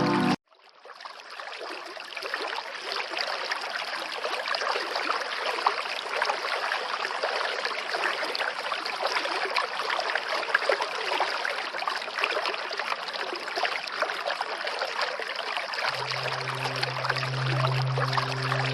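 Steady rush of running water, fading in after a brief drop-out at the start. Soft background music with a low held tone comes back in over it near the end.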